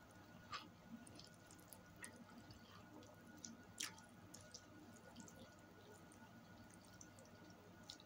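Faint wet chewing and mouth clicks from eating spaghetti, with two sharper clicks, about half a second in and near four seconds in.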